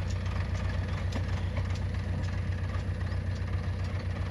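Heavy diesel engine idling steadily with a fast, even throb.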